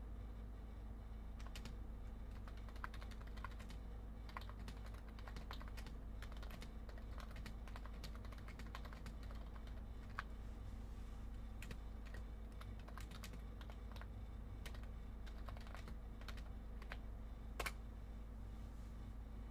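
Typing on a computer keyboard: irregular key clicks in quick runs and pauses, with one louder key strike near the end, over a steady low electrical hum.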